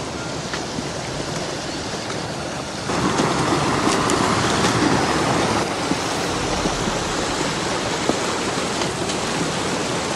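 A steady rushing outdoor noise that jumps louder about three seconds in and eases back about three seconds later.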